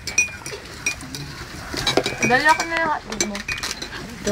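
Spoons and forks clinking against ceramic plates and bowls at a meal, in many short, irregular taps. About halfway through, a brief drawn-out vocal sound.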